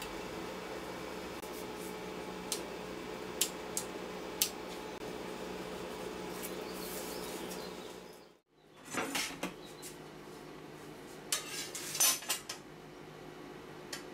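Metal clinks and clatter of steel on a steel welding-table top: a few single clicks in the first half, then louder bunches of clattering about two-thirds and four-fifths of the way through, over a steady low hum.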